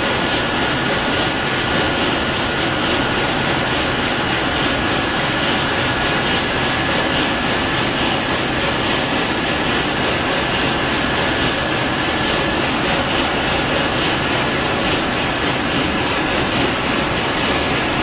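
Large two-stroke marine diesel engine running steadily in a ship's engine room: a loud, even mechanical din with a steady high-pitched whine over it.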